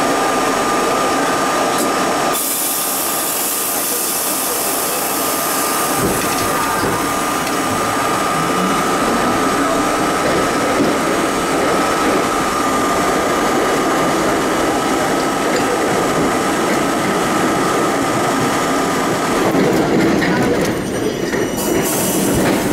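Budd-built R32 subway train running through a tunnel: a loud, continuous rumble and rush of wheels on rail, with a steady high tone that stops about 19 seconds in.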